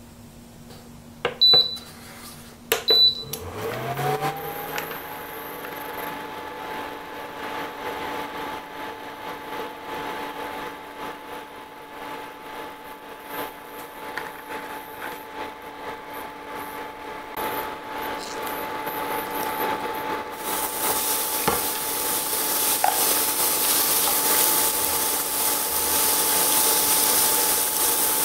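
Two short beeps from the Copper Chef induction cooktop's control buttons, then its cooling fan spins up with a rising whine and runs on with a steady hum. About twenty seconds in, a steady sizzle starts as chopped onion cooks in the hot pan and is stirred with a spatula.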